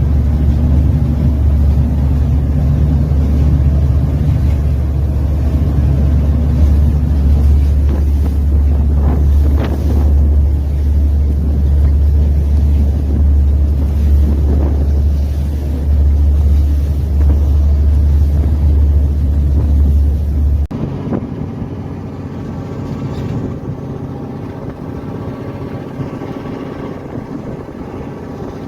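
Fishing boat's engine running with a steady low drone, with wind on the microphone. About two-thirds of the way through it cuts to a quieter, steady engine hum.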